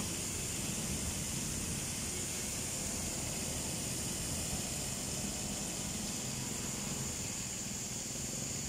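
Torrential rain pouring down in a steady, dense hiss, with a low rumble underneath.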